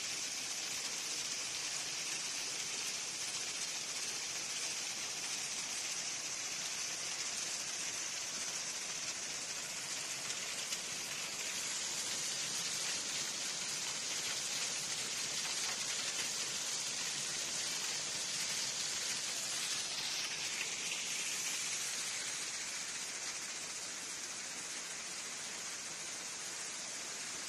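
Crushed stone rattling and sliding across a vibrating screen deck, a steady dense hiss of many small stones.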